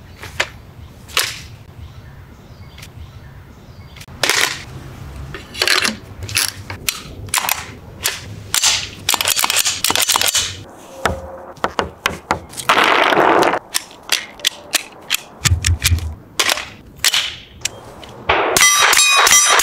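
Rifle being handled: a series of separate sharp metallic clicks and clacks from its parts and magazine. Near the end, rapid gunfire from the rifle: a fast, even run of shots.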